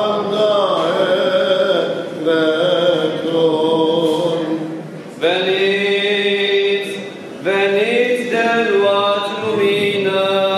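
Greek Orthodox Byzantine chant: voices singing long held notes over a steady low drone, with short breaths between phrases about two, five and seven seconds in.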